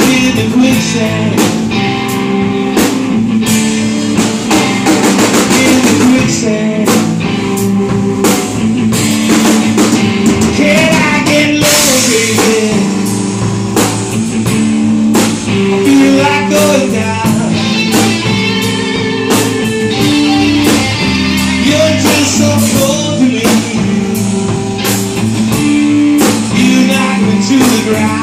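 Live rock band playing: two electric guitars, electric bass and a drum kit, with a man singing over them at times.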